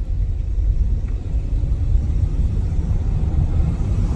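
Steady low rumble of engine and road noise inside a moving vehicle's cabin while driving.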